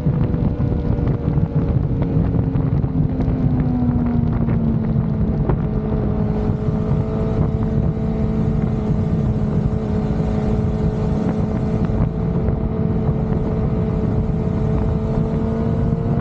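Suzuki sportbike engine cruising at a steady speed, with wind rushing over the microphone. The engine note dips slightly a few seconds in, then holds steady. A faint high hiss joins about halfway through.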